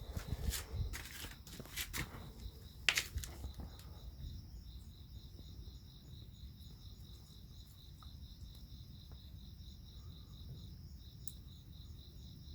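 A cat biting and tearing at cat grass, with crisp crunching and rustling strokes for the first three to four seconds. After that a faint, high, evenly pulsed chirping goes on over a low rumble.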